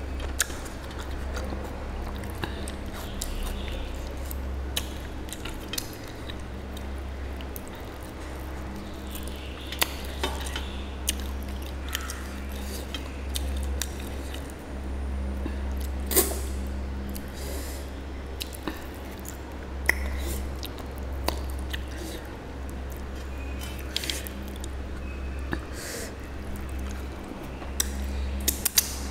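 Close-up eating sounds of mutton being chewed off the bone by hand, with scattered sharp clicks and smacks and occasional clinks against a steel plate. A steady low hum runs underneath.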